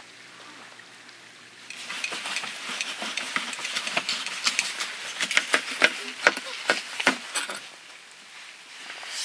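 A knife cutting through jar-roasted pork back ribs on a wooden cutting board, with metal tongs holding the rack: crackly cutting with a quick run of sharp clicks and taps. It starts about two seconds in and stops about two seconds before the end.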